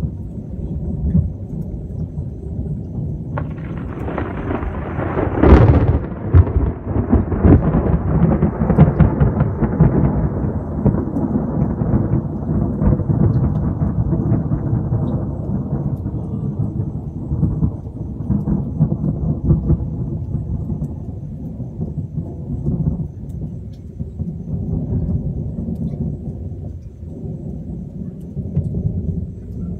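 Thunder: a clap breaks about three seconds in, its loudest crack about two seconds later, then it rolls on as a long rumble that slowly fades, over a steady low rumble.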